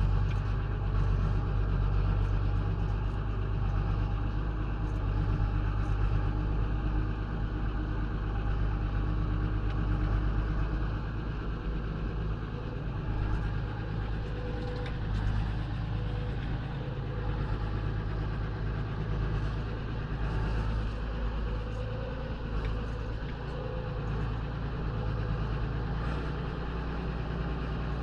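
Renault 120.54 tractor's diesel engine running steadily as the tractor works through soft mud, a low drone that eases a little about twelve seconds in.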